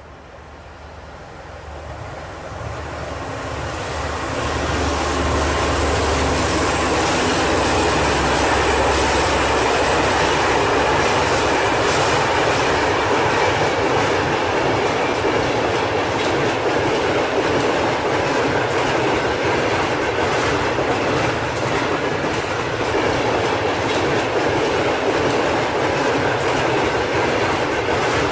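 Bullet train running on rails, swelling louder over the first five seconds with a high whine that fades away, then a steady rushing noise of wheels on track with scattered clicks.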